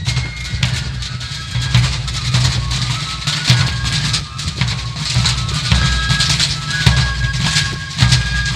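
Fife and drum band playing a march: a shrill fife melody over snare and bass drums, with wind rumbling on the microphone.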